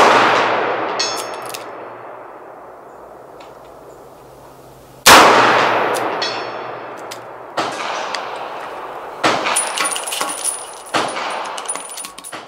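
.357 Magnum revolver (Dan Wesson 715) firing two shots about five seconds apart, each echoing away slowly, with a faint ringing ping about a second after each from the steel target being hit. Over the last five seconds comes a run of sharp metallic clicks and clinks.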